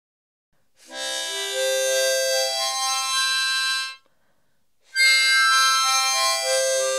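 A free-reed instrument plays two short phrases of held notes: a rising run, a pause of about a second, then a falling run.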